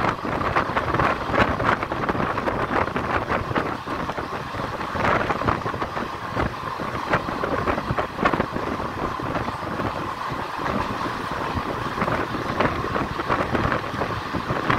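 Moving train heard from a window: a steady rattle and rumble of wheels on the rails with scattered short knocks, and wind buffeting the microphone.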